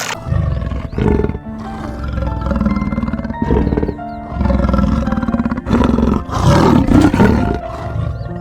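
A large animal giving a series of deep, rough calls over background music, the longest and loudest about six to seven seconds in.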